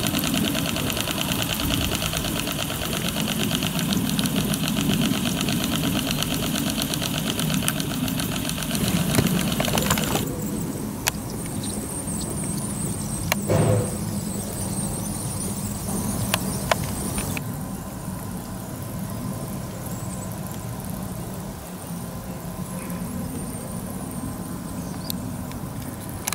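Model steam engine of a Marten & Howes steam plant running with a fast, even beat. It becomes quieter about ten seconds in, with a few sharp clicks.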